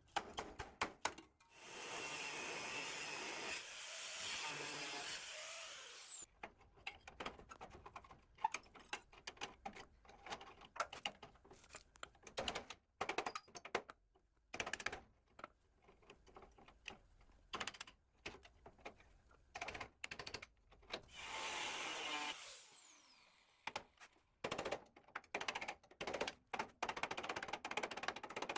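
A small power tool runs briefly twice and winds down with a falling whine each time, between many sharp clicks and knocks of hand work on the machine's parts.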